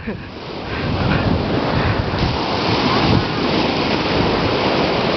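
Surf breaking on a beach, with strong wind buffeting the microphone in a steady, rumbling rush that builds over the first second and then holds.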